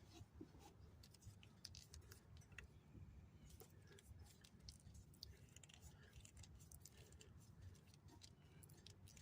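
Faint, scattered small clicks and light scrapes of hand tools and parts being handled, with metal hose-clamp pliers and fuel-line clamps at work.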